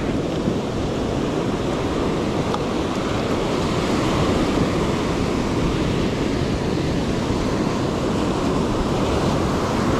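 Ocean surf washing onto a beach, a steady rush of waves, with wind noise on the microphone.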